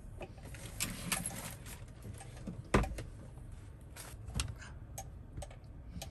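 Scattered light clicks and knocks of objects being handled and set down on a tabletop, among them a wooden hand coffee grinder placed on the table. The loudest knock comes a little under three seconds in.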